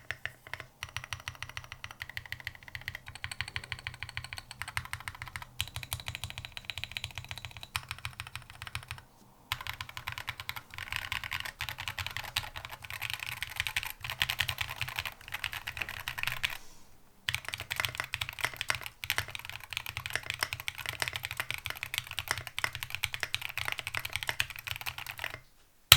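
Typing on a Piggy mechanical keyboard with an undampened aluminium plate, KTT Halu Halo switches lubed with Krytox 205g0 and SA Magica keycaps: a fast, steady run of keystroke clacks, broken by two brief pauses about 9 and 17 seconds in.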